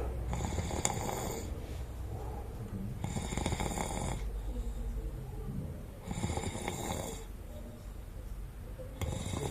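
A sleeping man snoring, with four snores about three seconds apart, each lasting about a second.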